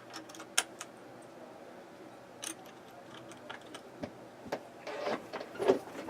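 Plastic keycaps being pressed back onto a Corsair K65 mechanical keyboard's Cherry MX switches: irregular sharp clicks and snaps, the loudest about half a second in and a cluster near the end.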